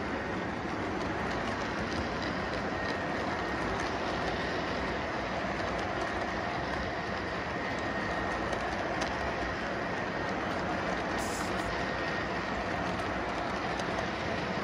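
Model freight train of double-stack container cars rolling past on layout track: a steady rumble of wheels on rail, with a faint steady high tone throughout.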